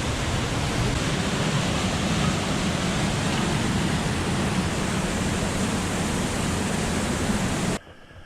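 Steady rushing of a mountain stream pouring over rocks, a loud even roar of falling water that cuts off suddenly near the end.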